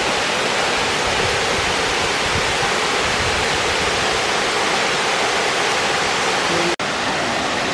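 Talakona waterfall in heavy flow: a steady, loud rush of falling water. The sound drops out for an instant near the end.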